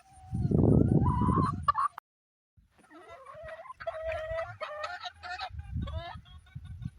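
Roosters crowing and clucking, their calls rising in pitch and breaking off. A loud low rumble on the microphone covers the first two seconds, and the sound cuts out completely for about half a second just after.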